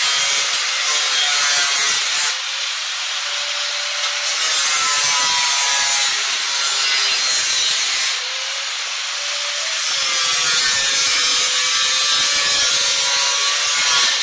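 Angle grinder with an abrasive cutting disc cutting through the sheet-steel case of a desktop computer, running loud and continuous under load. Its tone wavers as the disc bites, and the cut eases briefly about two seconds in and again about eight seconds in.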